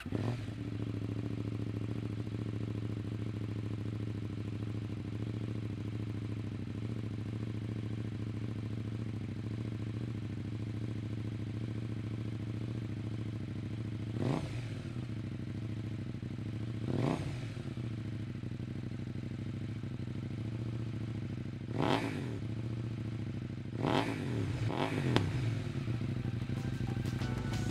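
KTM 790 Duke's parallel-twin engine idling steadily through an IxRace MK2 exhaust with the dB killer removed. It is blipped in short revs about six times in the second half, the last few in quick succession.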